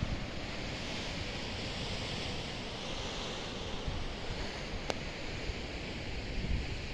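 Sea swell washing and breaking around rock ledges at the foot of a sea cliff: a steady rushing hiss that swells a little in the first half, with wind rumbling on the microphone. A single sharp click about five seconds in.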